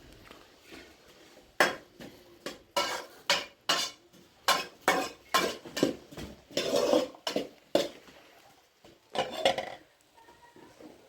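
Dishes and pots being handled: a run of about a dozen sharp clinks and knocks, with a couple of longer rattles.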